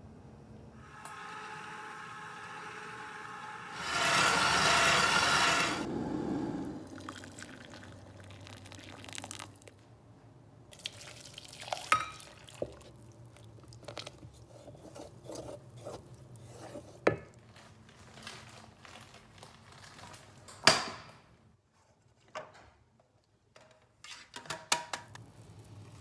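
A stand mixer with a wire whisk runs in the steel mixing bowl near the start, louder for about two seconds. Then scattered scrapes, wet squishes and sharp knocks of a utensil against the steel bowl as thick chocolate cake batter is worked and poured.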